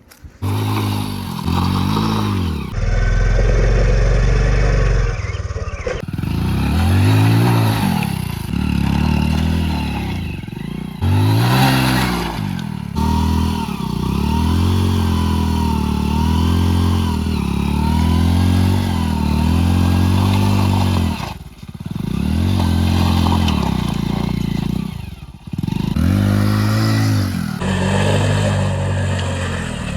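Hero Splendor Plus motorcycle's small single-cylinder four-stroke engine revving up and down again and again under hard riding, cut into short segments that change abruptly every few seconds.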